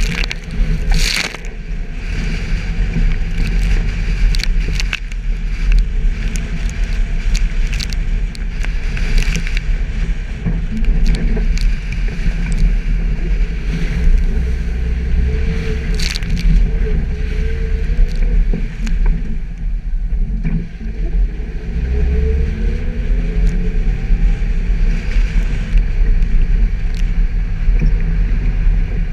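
Suzuki Jimny driven off-road, its engine running with a steady low rumble, with frequent knocks and rattles from the vehicle throughout.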